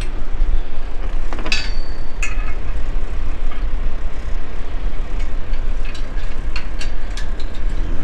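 Wind buffeting the microphone with a loud, uneven low rumble. Over it come a few metal clicks and a short ringing clink, from steel pins being handled in the steel hinge brackets of a truck-top rack.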